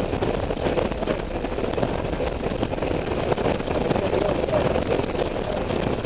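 Honda Silver Wing cruising at road speed: a steady mix of engine drone and wind rush, with no change through the stretch.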